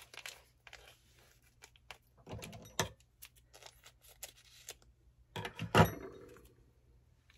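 Scattered rustling and clicking from things being handled, with a sharp knock about three seconds in and a louder knock near the end.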